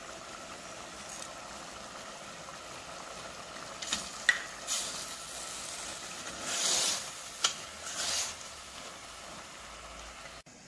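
Lamb mince frying on high heat in a stainless steel pot, sizzling steadily, while a wooden spoon stirs it. From about four seconds in there are a few sharp knocks and scrapes of the spoon against the pot.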